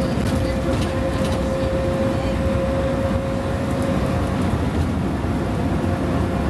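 Mercedes-Benz O-500UA bus with a Caio Mondego HA body, its diesel engine running steadily with a steady whine over a low rumble.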